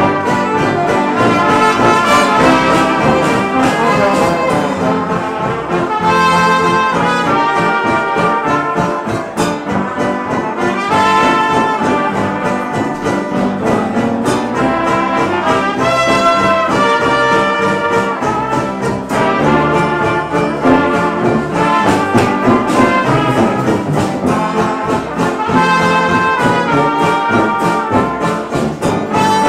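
Traditional jazz band playing a tune together, trumpets and trombone out front over a steady beat.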